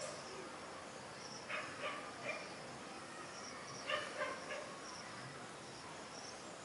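Insects chirping in a steady, high, repeating pattern. Over it come two runs of three short animal calls, about a second and a half in and again about four seconds in.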